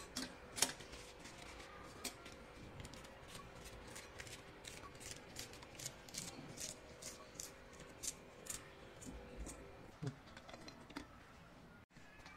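Knife slicing through a handful of fresh betel leaves held over a steel grinder jar: a quick run of crisp snips, about three a second, that stops about nine seconds in.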